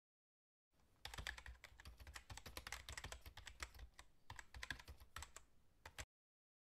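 Keyboard typing sound effect: quick, dense key clicks that start about a second in, ease briefly around the middle, and cut off suddenly near the end.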